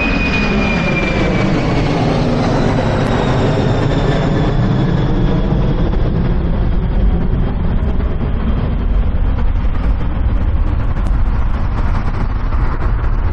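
Boeing 747's four jet engines at takeoff thrust, a loud steady rumble with a high whine that slowly falls in pitch, over steady motorway traffic noise.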